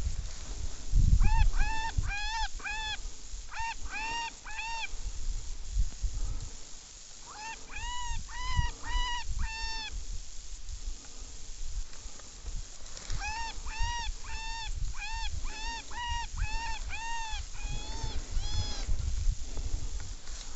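Series of short, arched honking animal calls, a few a second, in four bursts, over a low rumble like wind on the microphone.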